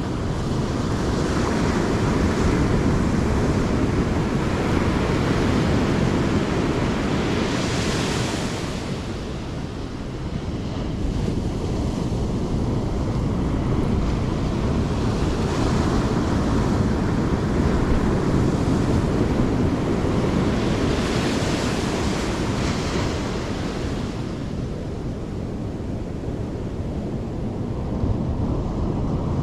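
Ocean surf breaking on a sandy beach, a steady wash that swells and eases over several seconds, with wind buffeting the microphone.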